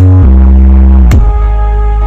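Very loud electronic dance music with heavy sustained bass, played at full volume through a large carnival sound system during a sound check. The bass note steps down twice, about a quarter second in and about a second in, each change marked by a sharp hit.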